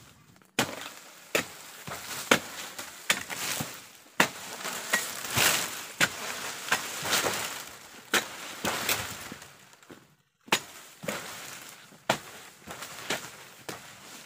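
Long-handled palm chisel (dodos) chopping into oil palm frond bases: a run of sharp strikes, with the dry rustle of stiff palm fronds being cut loose between them and a short pause about ten seconds in.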